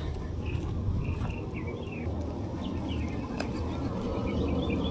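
Outdoor ambience: scattered short, high chirps of small creatures over a steady low rumble, with one sharp click about three and a half seconds in.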